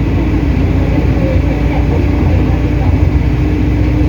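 City bus engine and road noise heard from inside the moving bus: a steady, loud low rumble with a constant hum.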